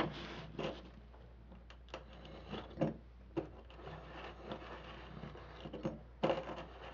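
Faint scattered taps and rubbing of an aluminium drink can being turned on a tabletop against a pen tip, marking a line around the can, with a louder bit of handling near the end. A low steady hum lies underneath.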